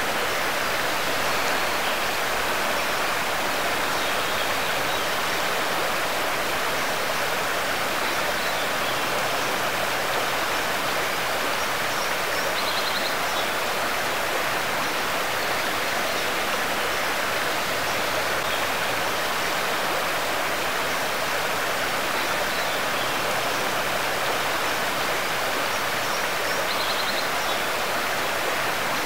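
Shallow river running over a pebble and gravel bed, a steady, unbroken rush of water.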